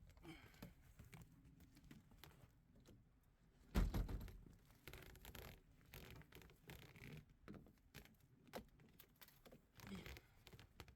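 Faint scratching, rustling and small knocks of gear being handled, with one louder dull thump about four seconds in.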